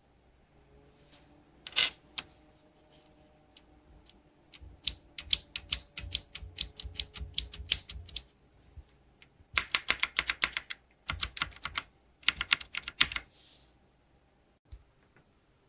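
Typing on a Logitech K845 mechanical keyboard with TTC Brown switches: one sharp key click, then three runs of fast keystrokes separated by short pauses.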